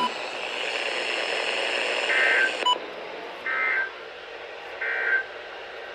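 Three short bursts of EAS end-of-message data tones, a buzzy digital warble, about a second apart, marking the end of the alert. Under the first burst runs a steady radio hiss that cuts off with a short beep.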